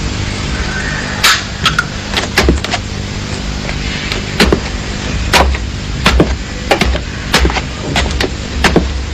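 Sharp knocks or clicks, about one or two a second at irregular spacing, over a steady low hum.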